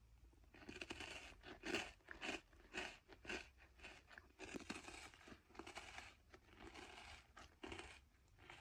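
Crunchy sweet cookies being bitten and chewed, a quiet run of irregular crisp crunches starting about half a second in.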